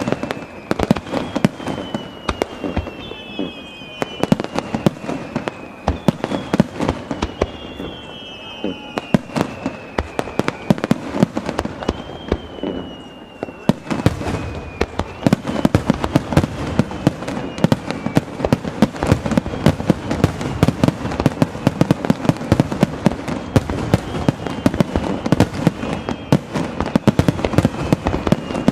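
Fireworks display: a rapid run of sharp bangs and crackling, with several whistling shells whose tone falls slowly in pitch over a second or two in the first half. From about halfway the bangs come thicker and louder.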